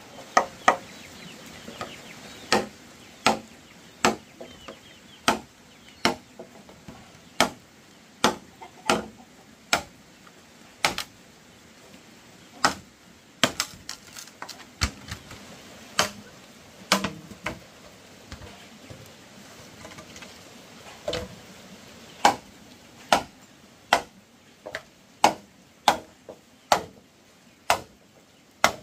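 Repeated sharp chopping blows of a blade into wood, about one a second with a few short pauses.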